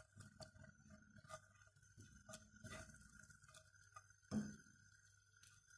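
Chopped garlic frying gently in oil in a nonstick pan, making faint, irregular crackles and small pops, with a single knock about four seconds in.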